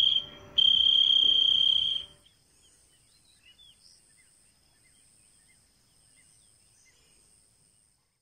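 Insects trilling: a loud, steady, high-pitched insect drone that drops out briefly near the start and stops about two seconds in. After that comes faint, high chirring of insects with scattered short chirps.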